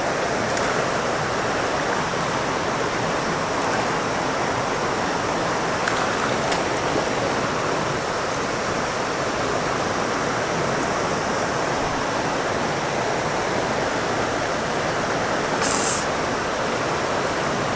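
Creek water running steadily, a continuous even rush of flowing water.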